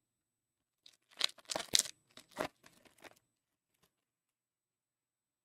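A trading card pack wrapper being torn open by hand: a quick run of ripping and crinkling lasting about two seconds, starting about a second in.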